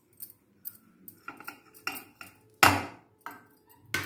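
Stainless steel bowls knocking and clinking against each other as grated coconut is tipped out, with light taps and a loud clang about two and a half seconds in, then another near the end.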